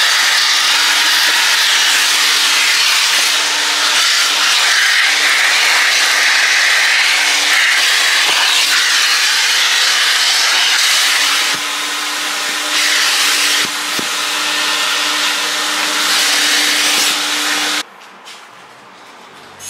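Self-serve car wash vacuum running: a loud rushing of air with a steady motor hum, changing a little as the nozzle moves. It shuts off suddenly near the end.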